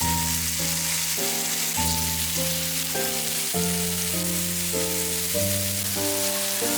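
Sliced lotus root frying in oil in a pan, with a steady sizzle, under background music with chords changing about every second.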